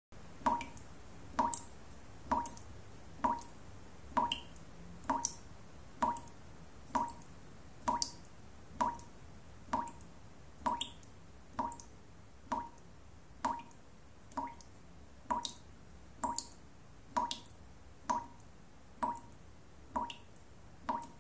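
Water dripping steadily, a single drop falling about every second, each landing as a small plop.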